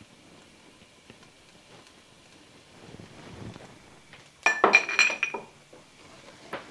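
Kitchen dishes clinking: a quick cluster of sharp, ringing clinks about four and a half seconds in, as a small dish is set down among others, then one lighter click near the end.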